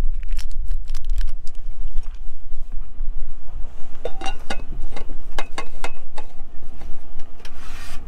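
Steady low wind rumble on the microphone. About four to six seconds in, a run of small clicks and taps as a screw lid is threaded onto a stainless Yeti insulated bottle, then a brief rushing noise just before the end.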